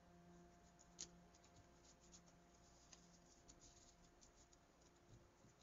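Faint rustling and light ticks of folded paper being handled and pressed flat on a mat, with a sharper tick about a second in, over a faint steady hum.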